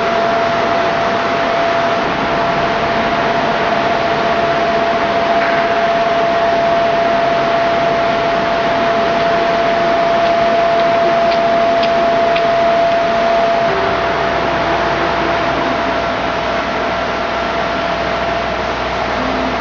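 Tunnel-construction ventilation fan forcing air through a large duct: a loud, steady rushing with a constant whine. About two thirds of the way in the whine fades and a deeper rumble comes in.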